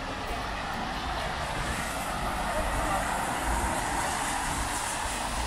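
Traffic on a rain-wet city street: a steady hiss of tyres on wet pavement over a low engine rumble, growing louder about two seconds in as vehicles pass.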